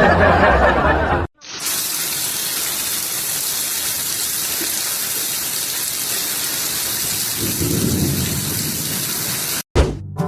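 A steady, even rushing noise lasting about eight seconds, which cuts off suddenly near the end.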